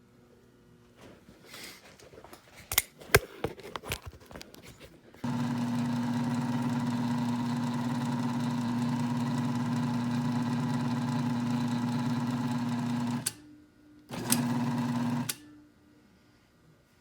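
A few clicks and knocks, then the electric motor of a key-cutting machine switches on and runs with a steady hum for about eight seconds, cuts off, and runs again for about a second before stopping.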